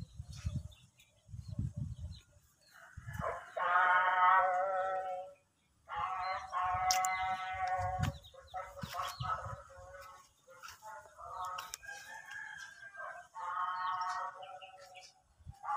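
Rooster crowing again and again, long drawn-out crows of about two seconds each following one another from a few seconds in. A few low thumps come before the first crow.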